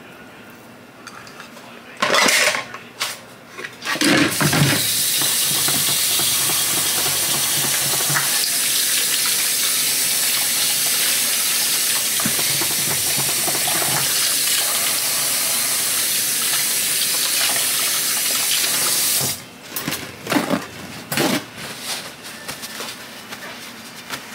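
Kitchen tap running steadily for about fifteen seconds while hands are washed under it, after a couple of knocks near the start. The water cuts off abruptly, followed by scattered rustling as the hands are dried with a paper towel.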